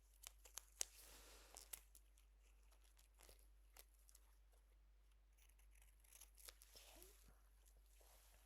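Scissors snipping and fingers peeling a sticky sheet of adhesive wound-closure strips: quiet, scattered sharp clicks with short crackly tearing sounds.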